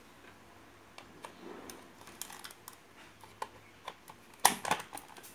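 Light plastic clicks and knocks as a mains plug is handled and pushed into an extension socket board, with the loudest cluster of clicks near the end as it goes in.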